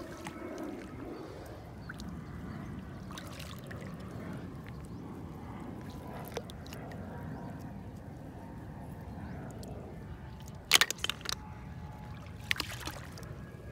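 Shallow water sloshing softly as a hand works through it among the reeds. Near the end comes a quick run of sharp clicks, then a couple more: apple snail shells knocking together in a plastic basin.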